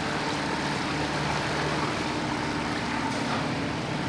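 Outboard motor of a small cabin cruiser running steadily at cruising speed: an even hum that holds one pitch throughout.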